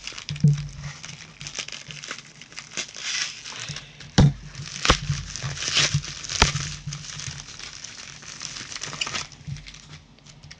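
A mailing envelope and its plastic-sleeved cards rustling and crinkling as the package is opened and handled, with a few sharp knocks near the middle.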